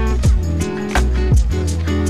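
Background music with a steady beat: deep bass, held notes and regular drum hits.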